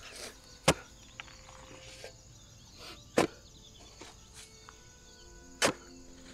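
Three sharp strikes about two and a half seconds apart, a digging tool driven into the ground, with faint held tones beneath.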